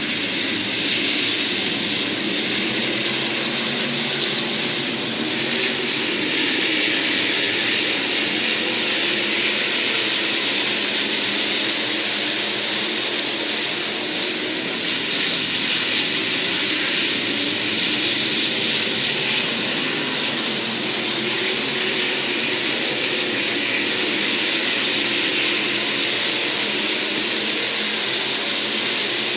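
A field of SportMod dirt-track race cars running at speed together, their engines blending into one steady, loud drone with a heavy hiss over it.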